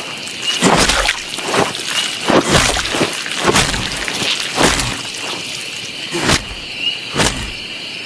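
Heavy, wet blows repeated about once a second: a blade hacking into a body, over a steady high chirring of night insects.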